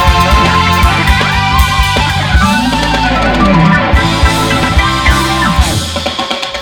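Live rock band playing an instrumental passage: electric guitar, bass and drum kit with rapid kick-drum beats. Near the end the drums and bass drop away and the music thins out.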